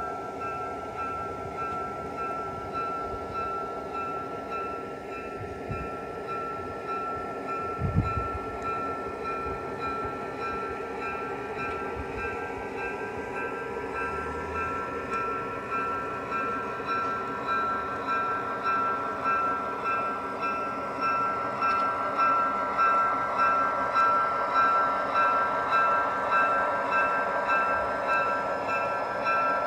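QSI DCC sound decoder in a USA Trains G-scale GP30 model playing a diesel locomotive engine sound through the model's speaker: a steady running drone with a constant whine, growing louder in the second half with a regular pulse. A single thump about eight seconds in.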